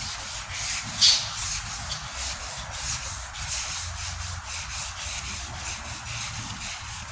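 Wet sandpaper rubbing back and forth over the painted steel tailgate panel with soapy water, in steady strokes about twice a second, working the paint along a body-line groove.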